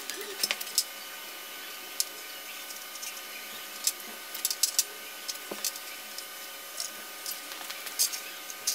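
A white marker scratching and tapping on sheet steel as an outline is traced along a steel ruler: short, irregular scrapes and light clicks over a steady background hiss.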